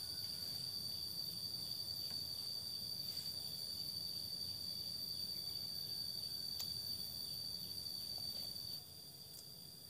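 Insects droning in the forest: one steady high-pitched tone with a fainter hiss above it, which drops in level about nine seconds in.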